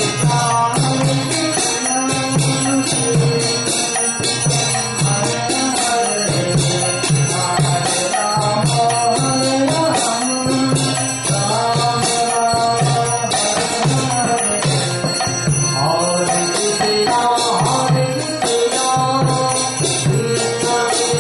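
Devotional kirtan: voices chanting a melody to a harmonium's reedy drone, with a hand drum beating a steady rhythm beneath.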